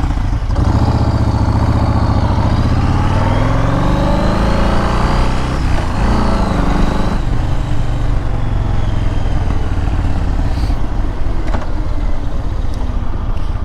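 Motorcycle engine pulling up through the revs for several seconds, dropping at a gear change about six seconds in, climbing again, then settling into steady cruising under rushing wind noise.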